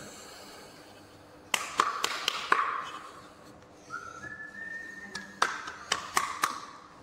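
A short whistle, one note then a step up to a higher one, held for about a second in the middle. Sharp taps and knocks come in two clusters, one before the whistle and one after it.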